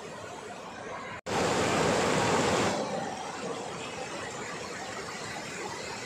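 Mountain stream rushing down a sloping rock slab in a small cascade, a steady hiss of white water. About a second in it cuts out for an instant, then comes back much louder for about a second and a half before settling to its steady level.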